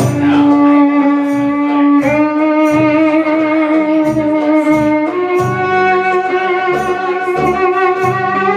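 Live Middle Eastern-style band music for belly dance: a violin holds three long notes with vibrato, each a step higher than the last, over a steady low beat about twice a second and plucked strings.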